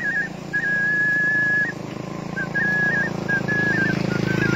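A man whistling a flute-like melody with his hand at his mouth, imitating the Karo Batak flute: a single high, pure line with a long held note about a second in, then quick trilled and flicked ornaments.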